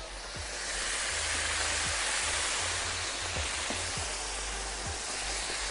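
Breaded beef escalope sizzling in hot frying oil in a frying pan, the sizzle swelling about a second in as the slice goes into the oil and then holding steady.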